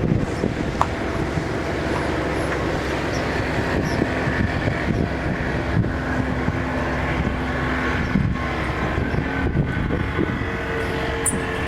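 Outdoor ambience dominated by a steady engine running, its low hum holding through the middle, over wind buffeting the microphone.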